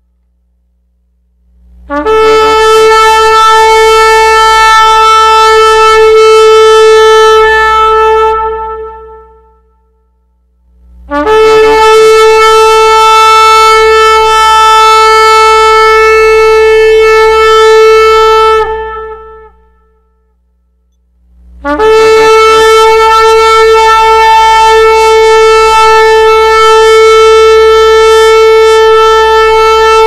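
Shofar sounding three long, steady blasts on one held note, each lasting several seconds with a short silence between; the third is still sounding at the end.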